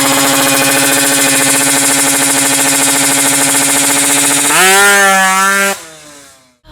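Two-stroke Kawasaki Ninja 155 drag-bike engine held at high revs, with a rattly buzz. About four and a half seconds in it revs sharply higher, then cuts off a second later and dies away.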